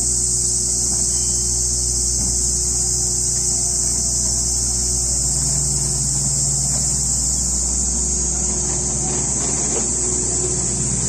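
Loud, steady shrilling of summer cicadas over the low rumble of the Kominato Railway Satoyama Torocco train's engine. The engine note strengthens about five seconds in as the train pulls away from the platform.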